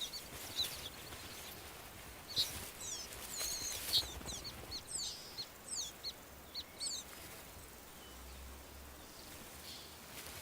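Small songbird chirping: a run of short, high, quick calls and trills from about two to seven seconds in, over faint background hiss.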